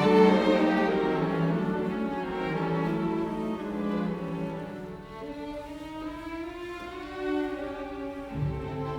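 Background music of bowed strings, violin and cello, playing slow sustained notes, with a low bass note coming in near the end.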